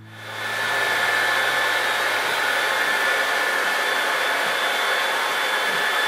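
A hair dryer running steadily, a rushing blow with a faint whine, fading in over the first second.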